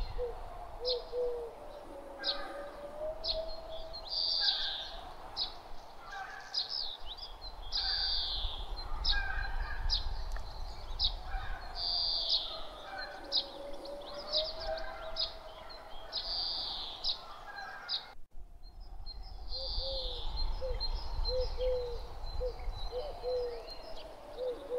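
Nature ambience of many birds chirping and calling, over a low rumble and a soft tone that slowly rises and falls. The sound drops out for an instant about eighteen seconds in, then the chirping carries on. A run of short low notes comes near the end.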